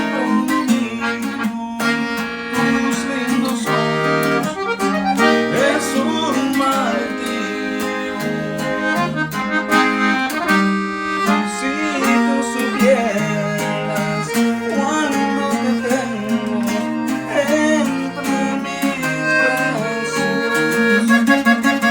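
Accordion-led norteño-style music with a bajo sexto strumming chords and bass runs underneath; the bajo sexto is the maker's purpleheart-wood instrument being demonstrated.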